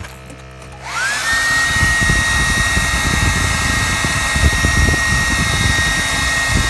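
Hair dryer switched on about a second in: its motor whine rises quickly to a steady high pitch and holds there over a loud rush of air.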